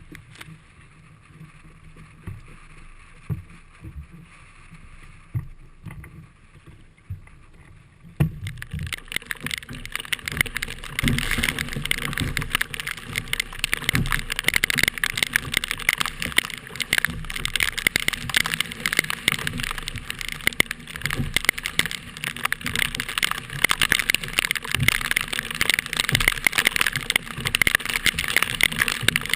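Wind buffeting the microphone with low thumps, then about eight seconds in a sudden change to a loud, steady, crackling rush of water and wind noise around a kayak at sea in strong wind.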